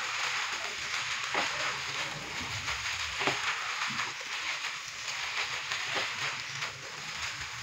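Noodles and vegetables sizzling in a hot wok as they are tossed and stirred with a plastic spatula and a wooden spoon. A few short knocks and scrapes of the utensils against the pan.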